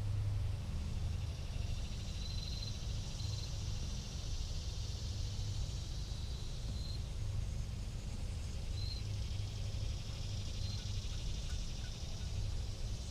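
Wind buffeting a GoPro's microphone as a steady low rumble. Over it runs a high, insect-like hiss that swells and fades, with five short high chirps scattered through.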